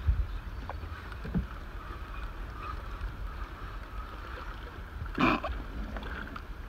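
A hooked fish thrashing and splashing once at the water's surface, a short loud splash about five seconds in, over a steady low rumble of wind on the microphone.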